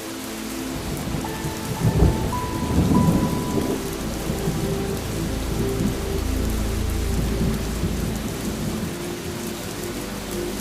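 Steady rain with rolling thunder: a sharp crack about two seconds in, then a low rumble that swells and fades over several seconds. Faint sustained music tones sound underneath.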